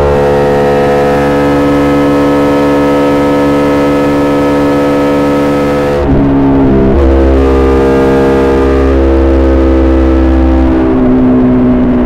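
KTM Duke 200 single-cylinder engine running through an SC-Project SC1-R exhaust with a custom powerbomb header, holding a steady note while riding. The note changes abruptly about six seconds in and again near the end.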